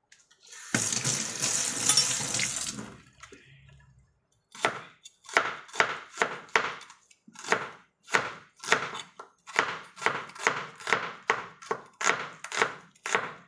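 Water running for about two seconds, then a knife chopping steadily on a cutting board, about two strokes a second.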